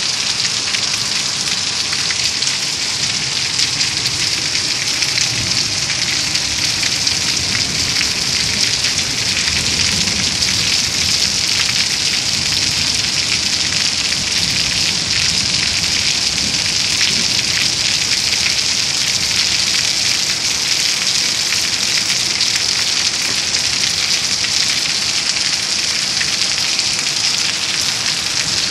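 Heavy rain pouring onto a flooded asphalt street, a steady dense hiss of drops splashing on the water-covered road.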